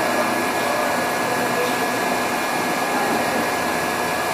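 Mori Seiki MV-653 CNC vertical machining center running: a steady whirring noise with a constant high-pitched whine.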